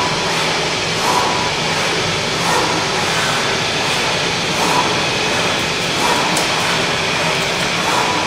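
Zünd G3 digital flatbed cutter at work: a steady, loud rushing drone from the machine, with a short whine repeating about every one and a half seconds as the cutting head moves.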